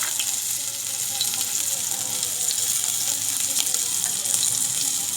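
Ginger sizzling as it fries in hot oil in a kadai: a steady hiss with scattered small crackles.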